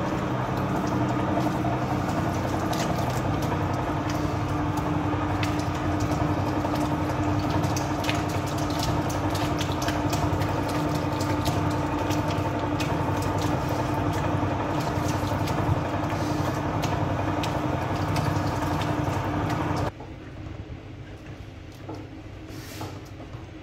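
Electric bowl dough mixer running steadily, its arm kneading Sangak bread dough, with a hum and light irregular clicks; it cuts off about twenty seconds in, leaving it much quieter.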